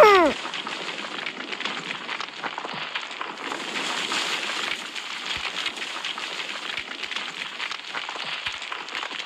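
A brief falling tone right at the start, then a steady bubbling, crackling noise of lava, dense with small pops.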